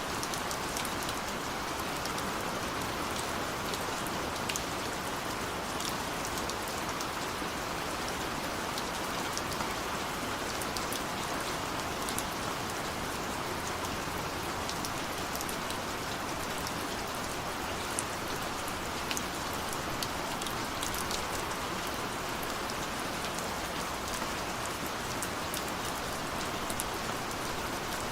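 Steady rain falling on a window: an even hiss with many small, sharp drop ticks scattered through it.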